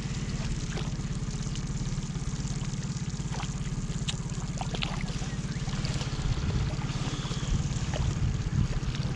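Small outboard motor running steadily at low revs, a constant low hum, with scattered splashes as a hooked fish thrashes at the surface beside the boat.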